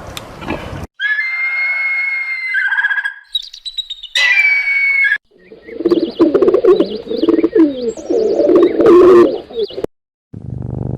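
A run of animal calls from separately cut clips: high, chirping calls first, then lower, wavering calls, each clip breaking off abruptly.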